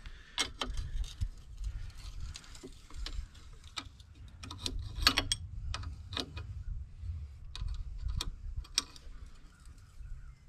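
Irregular metallic clicks and taps of a wrench working on the fittings of a water separator's dump valve and float linkage, over a low steady rumble.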